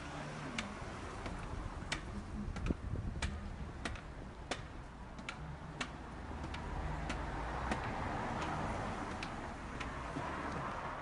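Spring-loaded jumping stilts striking paving stones as their wearer runs: sharp, evenly paced clacks, about one and a half a second.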